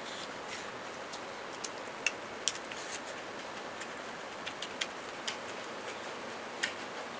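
Eating sounds from people eating biryani rice by hand from metal plates: scattered small clicks and smacks, irregular and brief, over a steady background hiss.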